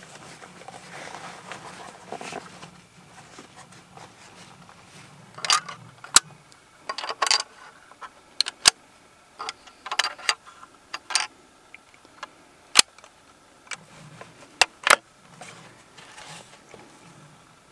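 Hunting gear being handled: about a dozen scattered sharp clicks and light clinks over the second half, after a faint low hum in the first few seconds.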